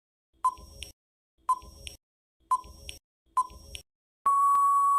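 Quiz countdown-timer sound effect: four short beeps about a second apart, then one long steady beep marking time up.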